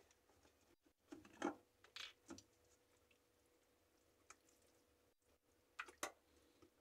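Near silence, broken by a few faint, short sounds of a plastic lime-juice bottle being handled and squirted into a mini food processor's plastic bowl of cooked chickpeas.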